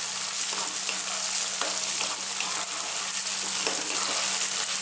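Tofu cubes with garlic and ginger sizzling in hot oil in a non-stick wok on high heat, stirred with a wooden spatula that lightly scrapes and taps the pan. A faint steady hum runs underneath.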